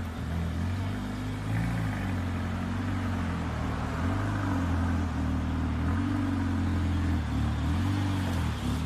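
Mercedes-AMG A45 hatchback's turbocharged four-cylinder engine and exhaust running at low revs as the car pulls slowly away, the note rising and falling in pitch with light throttle.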